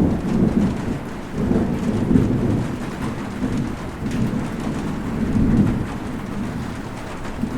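Steady rain falling, with low rolling thunder rumbling in swells throughout.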